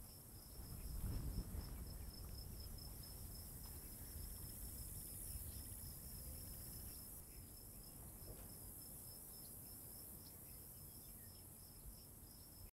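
Faint insects chirping in grassland, a steady high-pitched pulsing chirp, over a low rumble of wind on the microphone that swells briefly about a second in.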